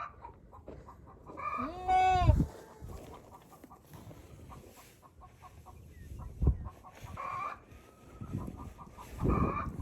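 Chickens clucking in short repeated notes, with one louder short call that rises and falls about two seconds in.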